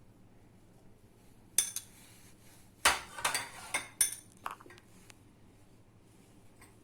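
A spoon clinking against a bowl about half a dozen times, sharp clinks in a loose run, while spice is spooned in.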